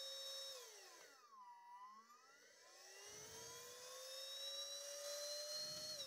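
Repaired CZK6650 cordless handheld vacuum cleaner's motor whining faintly. About half a second in, its pitch drops as the motor winds down, then it spins back up over the next few seconds, rising steadily in pitch, and near the end it winds down again.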